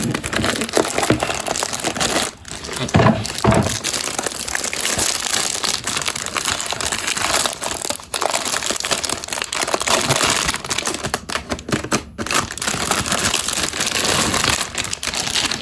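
Packaging being crinkled and crumpled in the hands as an iPad keyboard case is unwrapped: continuous crackling rustle with small breaks.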